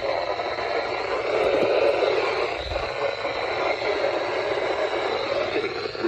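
Radio static: a steady, loud hiss from a radio receiver picking up a weather broadcast.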